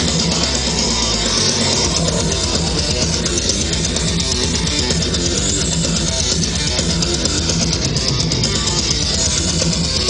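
Rock music with loud electric guitar.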